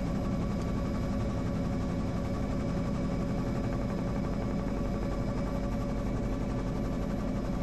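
Helicopter engine and rotor noise heard inside the cabin: a steady, even drone with low, level tones.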